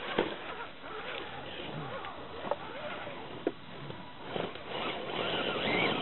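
Electric RC scale crawler climbing over rocks and dry leaves: a motor-and-gear whine that rises and falls in pitch with the throttle, with scraping and clicks from the tyres. It gets louder about four and a half seconds in.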